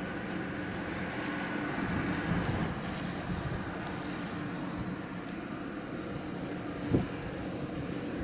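Steady low drone of the car ferry Ferry Tsurugi's engines as the ship gets under way from the quay, with a single sharp knock near the end.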